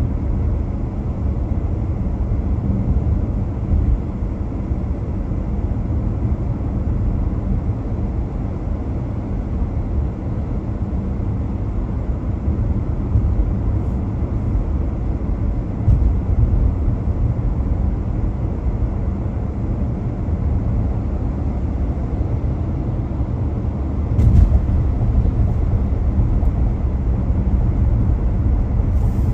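Steady low road rumble of a car driving, tyre and engine noise, with one brief louder bump about three-quarters of the way through.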